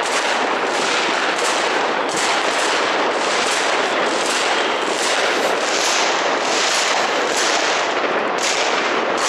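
Fireworks and firecrackers going off in a dense, continuous barrage of bangs and crackling, loud and without a pause.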